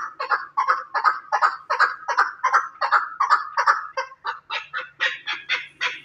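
Chukar partridge calling: a steady run of short, repeated clucking notes, about three a second, climbing higher in pitch toward the end.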